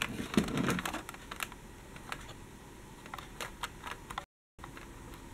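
Light plastic clicks and taps of a Dickie Toys City Liner toy tram being handled and turned over, several in quick succession in the first second or so, then sparser.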